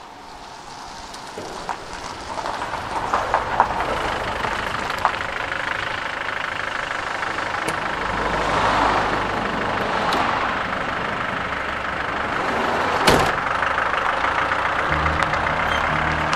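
Road vehicles: a minibus's engine running while a van passes, the passing loudest about nine seconds in, with one sharp bang about thirteen seconds in. The sound fades in over the first few seconds, and a low steady engine note comes up near the end.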